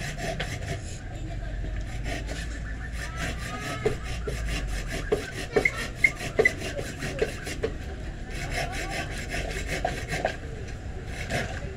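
Knife blade made from an old saw blade cutting and scraping a piece of wood in quick repeated strokes, with a few sharper knocks of the blade against the wood about five to seven seconds in.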